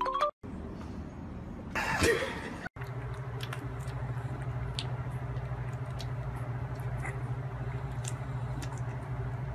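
Newborn puppies suckling at their mother, with faint wet clicks over a steady low hum. A brief burst of noise about two seconds in, before they are heard.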